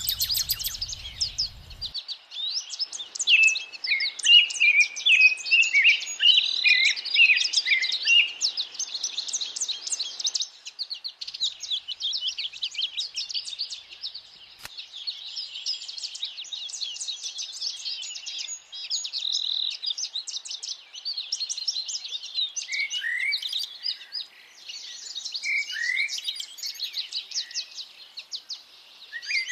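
Chorus of several songbirds chirping and trilling over one another in quick, overlapping phrases, with a few short downward-sliding whistled notes past the middle.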